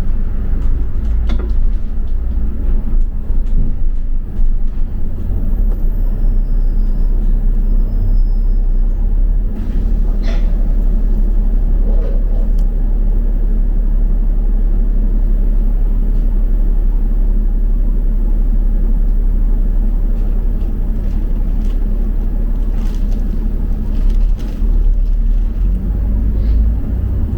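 Double-decker bus on the move: a steady low rumble of engine and road noise heard from inside, with a few faint knocks and rattles.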